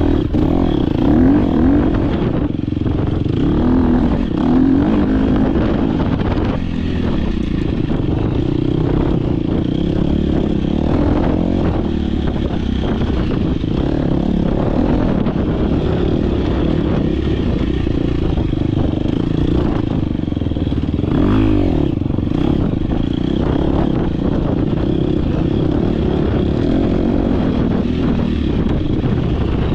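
Dirt bike engine under race load, revving up and down as the rider works the throttle and gears, with rattling and clattering from the bike over rough ground. A sharp rev up and back down comes about two-thirds of the way through.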